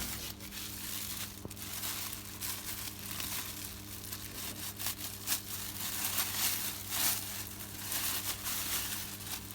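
Irregular crinkling and rustling of plastic packaging as a new washing-machine timer is handled and unwrapped, over a steady low hum.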